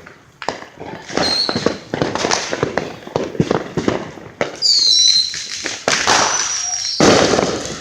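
Many consumer fireworks going off at once: a rapid run of bangs and crackling, with high whistling fireworks shrieking about a second in and again from about four and a half seconds in.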